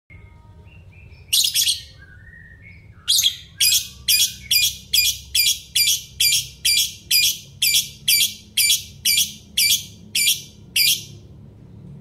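Fischer's lovebird calling with shrill, high-pitched shrieks: two about a second and a half in, then from about three seconds a run of some twenty evenly spaced shrieks, two to three a second, stopping about a second before the end. Softer chirps come in the first few seconds.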